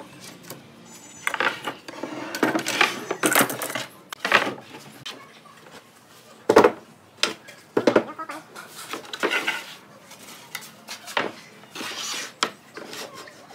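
Irregular clatter and knocks from handling metal bar clamps and wooden table parts on a workbench, with the sharpest knock about six and a half seconds in.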